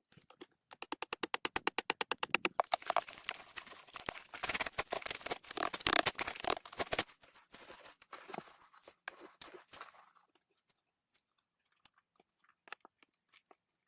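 Crunching and rustling: a quick run of crisp clicks about a second in, then denser crunching that thins out and stops about ten seconds in, with a few faint ticks near the end.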